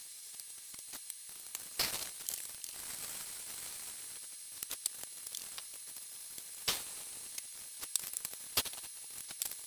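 Specialty malt grain poured from crinkly plastic bags into a plastic pitcher, with a few sharp bag rustles over a steady faint hiss.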